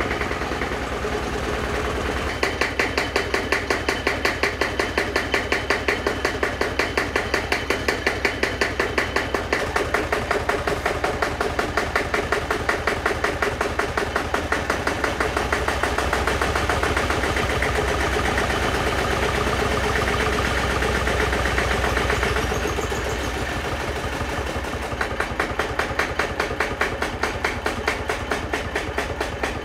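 1975 SABB marine diesel engine running on a test stand, a steady knocking beat of about four to five firing pulses a second. A little past the middle it runs smoother and slightly louder for several seconds, then drops back to the slower, distinct beat.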